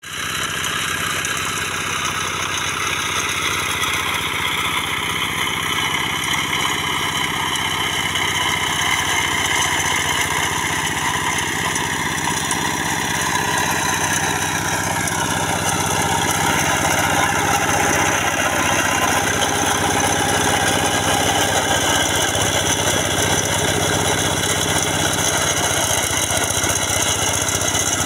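Walk-behind two-wheel hand tractor with a rotary tiller, its engine running steadily while it tills soil, getting a little louder over the first half.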